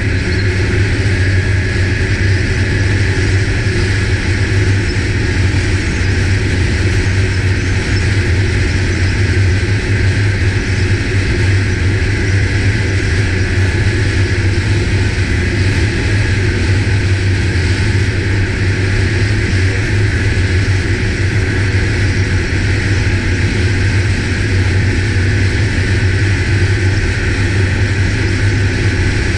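Ski-Doo snowmobile engine running steadily as the sled cruises along a snow trail: an unbroken drone with a strong low hum and no change in pitch.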